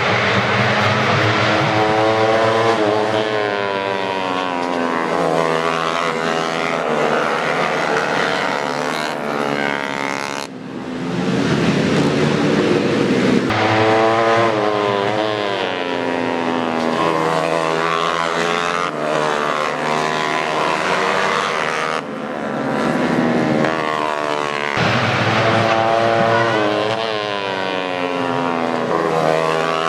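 Several tuned four-stroke 150cc underbone racing motorcycles at full throttle, engine pitch climbing through each gear and dropping back at every shift, over and over. The sound breaks off and resumes abruptly a few times.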